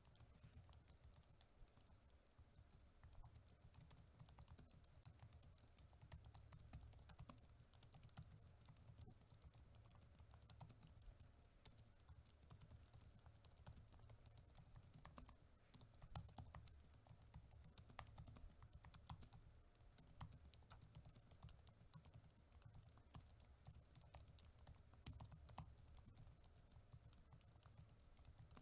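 Quiet, continuous typing on a mechanical keyboard: a fast, irregular run of keystrokes.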